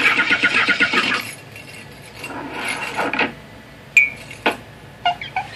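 Cartoon sound effect of an old car's engine sputtering into life, a fast rattling chatter in the first second or so, then softer rattling, a couple of sharp clicks and a few short squeaks near the end, heard through a TV speaker.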